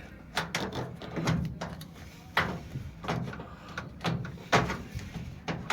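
Hard plastic knocks and clicks as the drain pump assembly of a Whirlpool Duet Sport front-load washer is slid sideways and worked loose from its mount: a series of sharp knocks about once a second.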